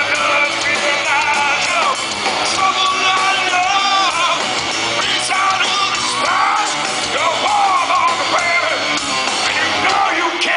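Hard rock band playing live, with a sung and shouted lead vocal over loud, dense full-band accompaniment.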